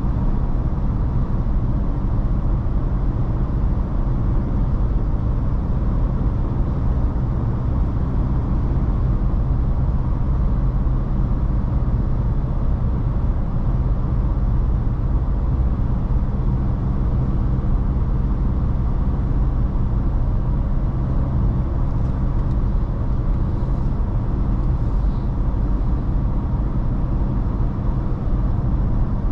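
Ford Ranger Raptor heard from inside the cabin while cruising steadily at highway speed: an even low engine drone mixed with road and tyre rumble, with no change in pitch or load.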